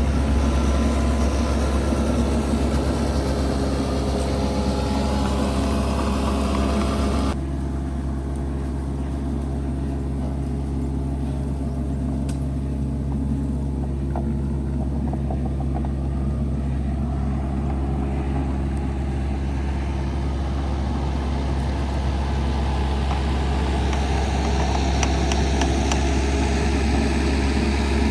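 Excavator's diesel engine running steadily under work with a deep, even hum. The higher-pitched noise drops away suddenly about seven seconds in while the low engine note carries on.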